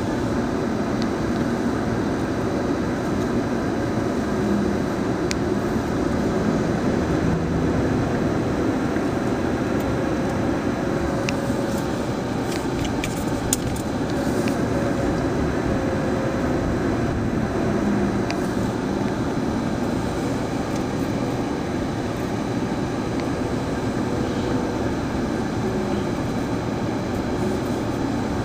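Steady rumble of a car driving along a road: tyre and engine noise heard from inside the cabin, with a few faint clicks.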